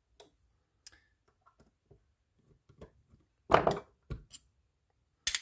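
Small metal clicks and taps as a conventional fishing reel is taken apart by hand, its last side-plate screw coming out. There is a louder scraping rattle about three and a half seconds in and a sharp click near the end.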